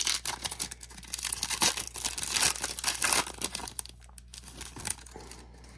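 A trading card pack wrapper being torn open and crinkled by hand, a dense crackling that lasts about four seconds and then dies down.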